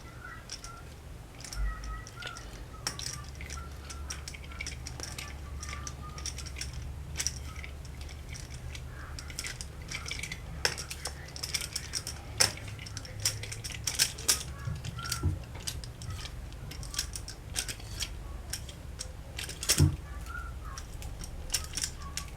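Metal tools and clamp parts being handled, with irregular sharp clicks and clinks that come thicker and louder in the second half, over a low steady hum.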